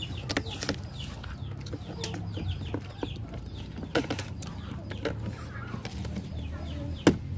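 Chickens clucking, with many short, high, falling chirps. Over this come a few sharp metallic clicks of pliers cutting and prying the wire fastenings on a plastic crate, the loudest near the end.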